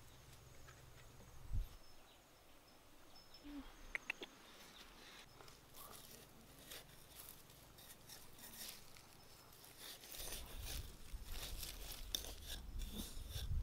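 Faint rustling and crumbling of dry, loose soil around a cricket burrow in the ground. There is one sharp thump about one and a half seconds in. Short crackles come more often in the second half, and a low rumble joins in near the end.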